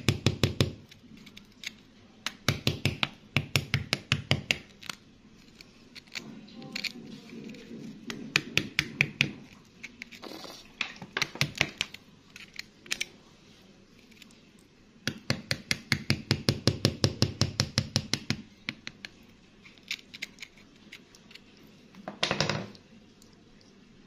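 Fast runs of sharp clicks and taps, about ten a second, coming in bursts of a second or two, as crumbly rock is picked and scraped away from around an embedded stone. A short, louder scrape comes near the end.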